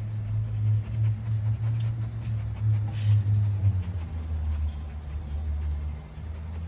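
Dog making a long, low, steady grumbling vocalization that drops to a lower pitch about halfway through.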